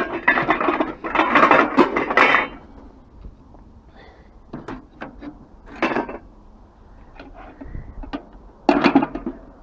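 Scrap metal being handled: a long, dense clatter for the first couple of seconds, a few sharp knocks around five to six seconds in, and another short clatter near the end.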